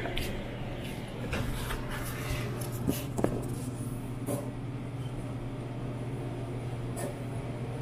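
Steady low hum of a convenience store's coolers and food warmers, with scattered light clicks and taps as cups and small items are handled on the coffee counter, the sharpest about three seconds in.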